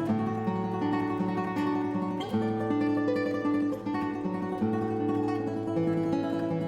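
Background music led by a plucked acoustic guitar, its notes and chords changing every half second or so.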